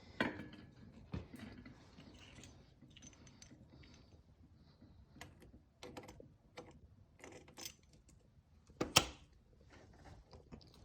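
A hand tool working a stuck exhaust stud loose on a dirt bike: faint, scattered metal clicks and scrapes, with a sharper clank about nine seconds in.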